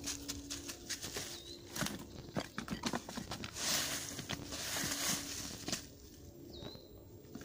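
A flat-coated retriever nosing and pawing through dry fallen leaves and twigs at the base of a tree stump, digging out a hidden geocache. The leaves crackle and rustle throughout, loudest for a couple of seconds around the middle. A bird gives a short whistle twice.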